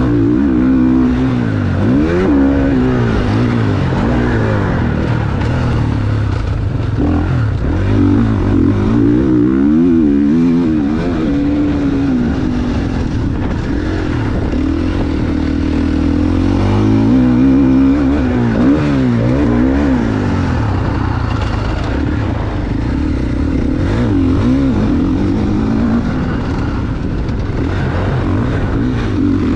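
GasGas MC450F motocross bike's 450cc four-stroke single-cylinder engine being ridden hard, its pitch rising and falling again and again as the rider revs through the gears and rolls off the throttle.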